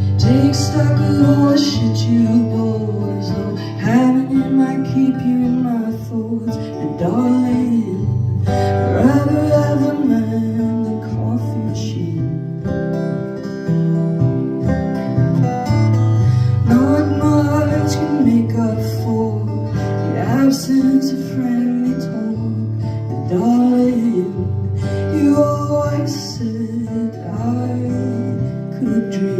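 Acoustic guitar strummed steadily, with a voice singing a melody that glides up and down over it.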